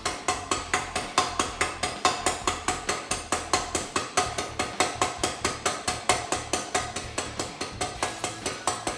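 Hammer tapping a headset bearing race into an aluminium mountain bike frame's head tube: a quick, even run of ringing metal-on-metal taps, about four or five a second.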